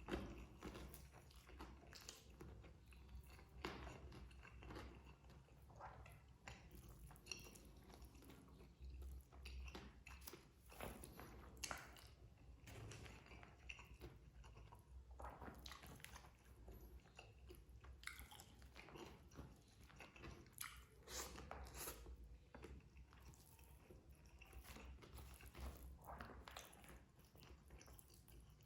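A person chewing and biting nasi padang, with irregular crunchy clicks and mouth sounds, faint and close.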